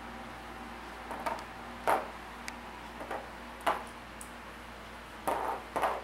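Flat glass gem game pieces being set down and moved on a cardboard board, clicking against the board and each other: several light clicks and taps at irregular intervals.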